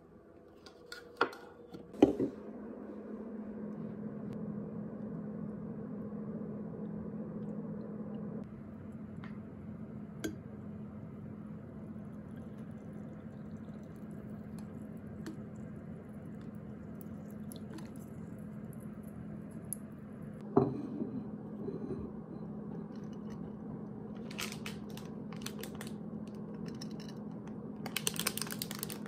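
Tabletop handling sounds while making an iced latte. A coffee canister's lid is pulled off with a few sharp knocks and clicks about two seconds in, coffee is poured over ice in a glass, and there is a single knock about two thirds of the way through. A plastic snack wrapper crinkles near the end, over a steady low hum.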